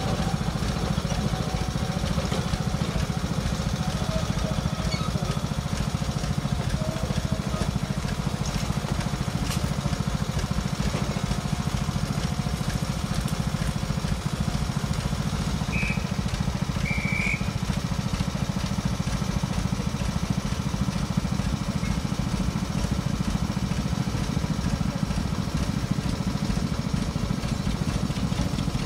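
Small narrow-gauge diesel locomotive engine idling, a steady low chugging. A bird chirps twice about halfway through.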